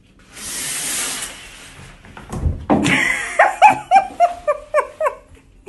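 A brief hiss, then a thump about two and a half seconds in, followed by a person laughing hard in a quick run of 'ha's that fall in pitch.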